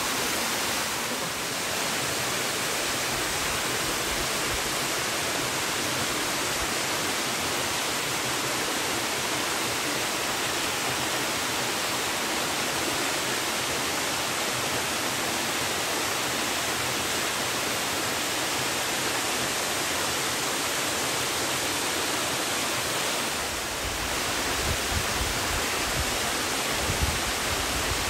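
Aosasa Kannon Falls, a 22 m branching waterfall, giving a steady rush of falling water, with a low rumbling added near the end.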